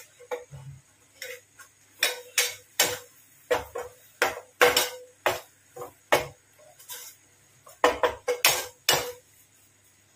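A steel spoon clinking and tapping against a steel bowl and pan as flour is spooned into melted butter: about eighteen sharp, irregular clinks, each with a brief ring.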